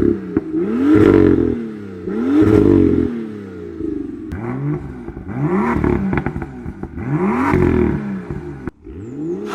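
BMW M2 exhaust as the engine is revved again and again, each blip rising and falling in pitch about every second and a half, with crackling at the top of each rev. Near the end it breaks off briefly and another rev starts.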